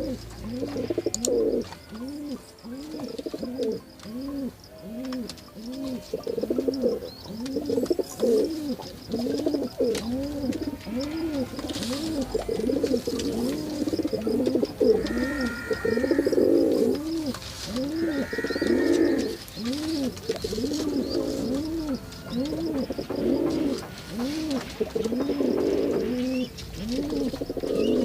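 Pigeons cooing over and over, a steady run of low coos that each rise and fall in pitch.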